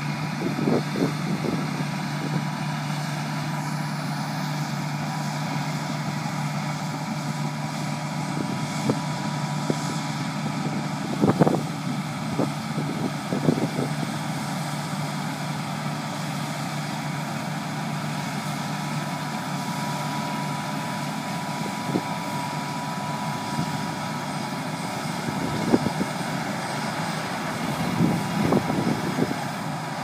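John Deere W650 combine harvester working in barley: a steady engine drone with a thin, steady high whine from the running machinery, and a few brief thumps.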